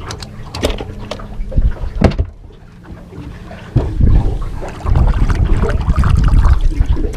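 Noises on a small fishing boat: a few sharp knocks and clicks, then a loud low rumble from about four seconds in.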